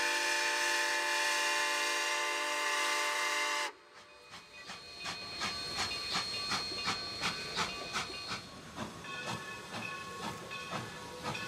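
Rio Grande No. 489, a 2-8-2 Mikado steam locomotive, blowing its steam whistle in a steady chord of several tones that cuts off sharply after about three and a half seconds. Its exhaust then chuffs in an even beat of about two to three a second as it works the train.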